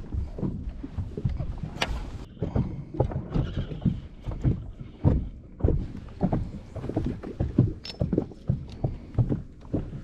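Irregular knocks and thumps in a fishing boat, two or three a second, from the gear and the people moving about.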